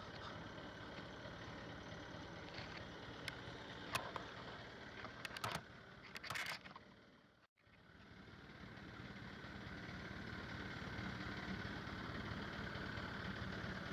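Boat engine running steadily, with a few sharp knocks and clatters about a third of the way in. The sound fades out briefly just past the middle and comes back.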